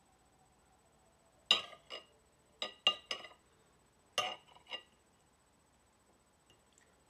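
A fork clinking against a plate about seven times, sharp short taps with a slight ring, some in quick pairs, as food is cut and picked up.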